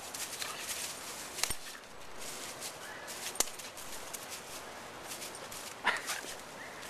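A dog jumping and tugging at a thin tree branch held in its teeth: dry fallen leaves crunching and scuffling under its paws and the twigs rattling, with two sharp cracks about one and a half and three and a half seconds in. Near the end the dog gives a short high cry.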